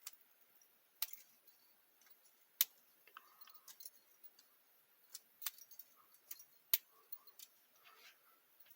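A tiny padlock being handled and worked with its key: scattered sharp metal clicks and light clinks, about eight in all, at uneven intervals.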